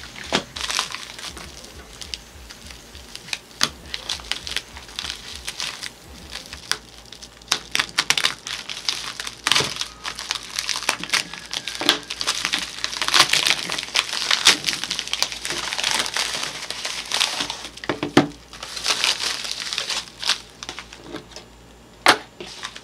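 Plastic poly mailer bag being torn open and crinkled by hand: a continuous run of crackling, irregular rustles and sharp crinkles.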